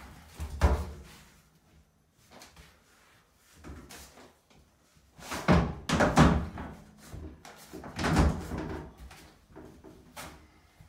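A large, heavy plastic tub-surround wall panel being pushed and shifted into place against the wall framing by hand: a series of irregular thumps and knocks, loudest about half a second in, around six seconds in and around eight seconds in.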